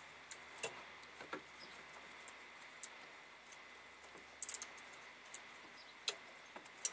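Light, irregular clicks and scratches of a multimeter probe tip and gloved fingers working against the metal pins of a glow plug relay's connector, with the sharpest clicks about four and a half and six seconds in.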